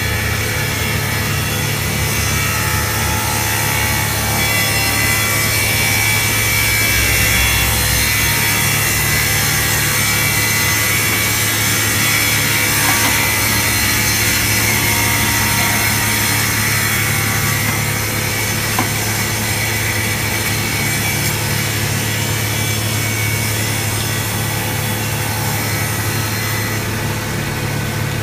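Multiblade stone mosaic cutting machine running steadily: a low motor hum under the continuous high hiss of its saw blades cutting stone.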